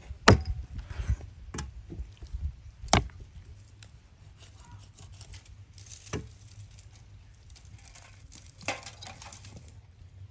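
Cleaver chopping through raw whole chickens onto a wooden cutting board: four heavy chops in the first three seconds, then two lighter knocks later on.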